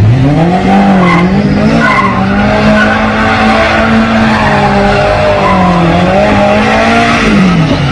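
Car engine held at high revs, with tyres skidding as the sedan spins in tight circles. The engine pitch climbs in the first second, holds high with a couple of small dips, and falls away near the end.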